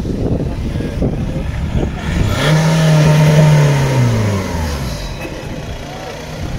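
A car engine revs once: the pitch climbs quickly, holds for about a second, then falls back down.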